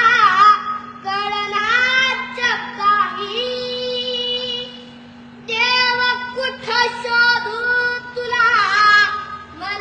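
A boy singing solo in long held notes with wavering ornaments, breaking off briefly about halfway before going on. A steady low hum runs underneath.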